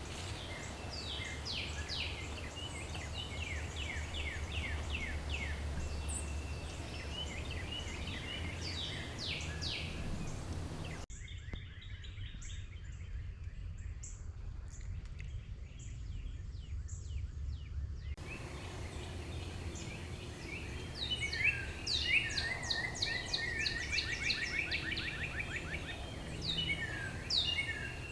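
Small birds singing and chirping in rapid runs of short, down-sweeping notes, busiest in the last third, over a steady low rumble.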